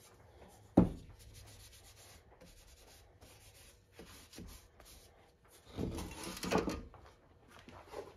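Hand rubbing oil over the steel blade of an antique crosscut saw, with one sharp knock about a second in and a burst of louder rubbing and handling noise about three-quarters of the way through.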